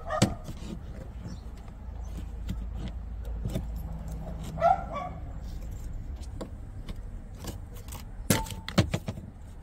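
Plastic clicks and rattles as a car's fuse box cover is pried open with a plastic trim tool, with a louder cluster of clicks near the end.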